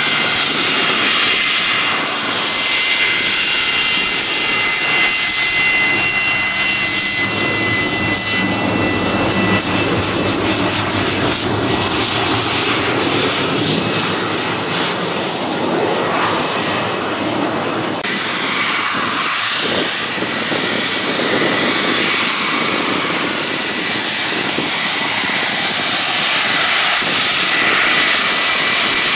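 Jet engines of a taxiing Fokker 70, its rear-mounted turbofans at low thrust making a steady rumble with several high whining tones. About 18 seconds in the sound switches abruptly to the turbofans of a taxiing Boeing 757, a similar steady whine at a different pitch.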